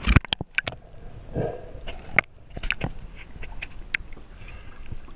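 Sea water and bubbles heard from underwater: a cluster of sharp splashing clicks as the camera goes under, then muffled bubbling about a second and a half in and scattered sharp clicks.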